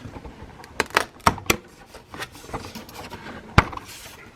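Engine cover being popped off its mounts in a Porsche Panamera S engine bay: a run of sharp clicks and knocks, with the loudest knock about three and a half seconds in.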